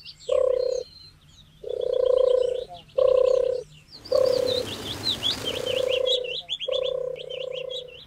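Repeated low animal calls, each half a second to a second long on one steady pitch, with small birds chirping high above. About four seconds in, a rushing hiss joins for about two seconds.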